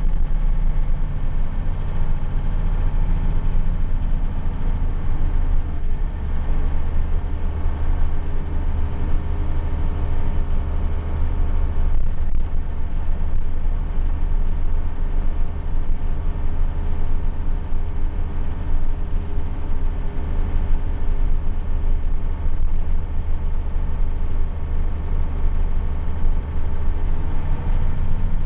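Mercedes-Benz Unimog 1300 L's six-cylinder diesel engine running steadily under load as the truck drives along a gravel track, heard from inside the cab as a heavy, low engine drone.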